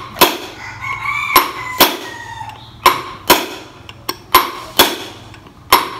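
Hammer blows on a tool held against a stripped Stihl 660 chainsaw crankcase, driving a part home: eight sharp strikes, mostly in pairs about a second and a half apart.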